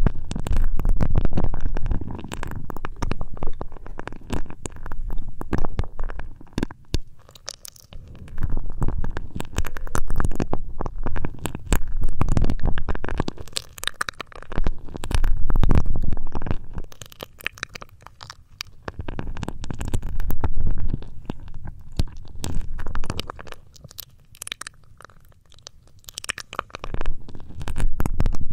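Hands rubbing and massaging the ears of a binaural ASMR microphone, a muffled low rumble with scratchy rustling that swells and fades in slow waves every few seconds.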